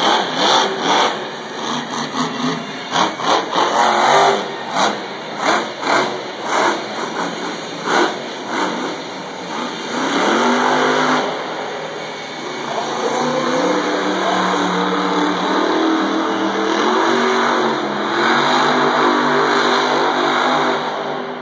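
Monster Energy monster truck's supercharged V8 revving in short, sharp throttle bursts, then held at high revs from about halfway, its pitch rising and wavering as the truck drives.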